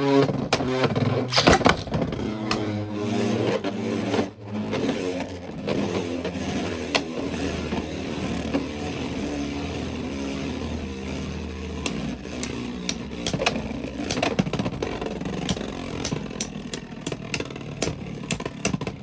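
Beyblade X spinning tops launched into a plastic stadium, whirring as they spin, with repeated sharp clacks where they collide and scrape. This is a stamina battle: one top is running down.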